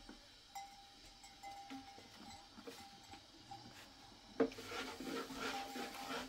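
Faint bleating of livestock, with held, wavering calls. From about two-thirds of the way in, the rub of a wooden rolling pin rolling out flatbread dough on a board.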